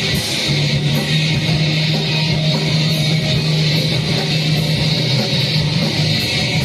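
Loud, heavily distorted rock band playing live: electric guitar and bass over drums, with recurring cymbal strokes.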